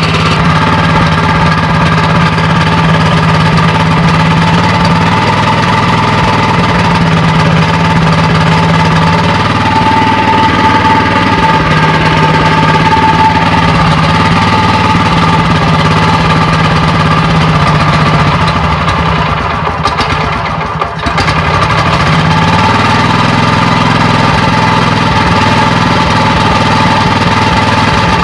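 Mitsubishi 8 hp single-cylinder engine on a hammer knife mower running steadily on its freshly cleaned carburetor while the carburetor is adjusted with a screwdriver, its speed shifting slightly every few seconds. About twenty seconds in it briefly sags, then picks back up.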